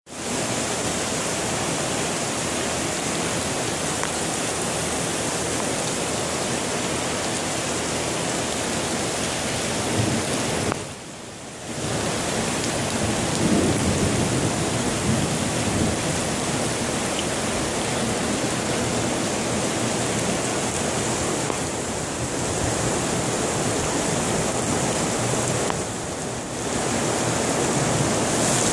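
Heavy downpour: a steady hiss of rain falling and water pouring down from an overhead steel gantry, with a brief drop in level about a third of the way in.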